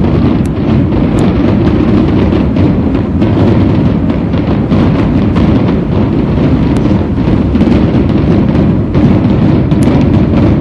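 Mass New Year fireworks: a continuous barrage of bangs and crackles merging into a steady rumble, with a few brief high whistles.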